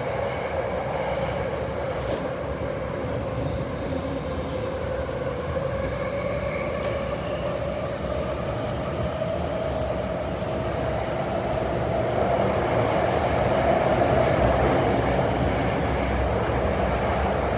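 Subway train running through a tunnel, heard from inside the passenger car: a steady rumble with a hum that rises slowly in pitch and grows louder in the last few seconds.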